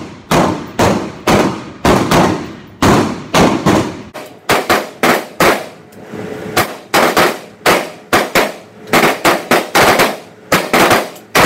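M4 carbines (5.56 mm) firing single shots from several shooters along a roofed firing line: over twenty sharp reports at an irregular pace of about two a second, each with a short echoing tail.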